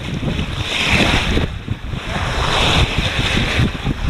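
Wind buffeting the microphone over the rush of sea water past a sailing yacht under way. The water hiss surges twice, about a second in and again a second or so later.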